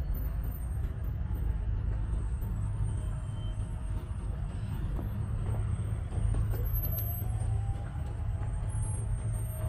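Road traffic: motor vehicles running past in a steady low rumble, with a faint engine or brake tone rising and falling near the end.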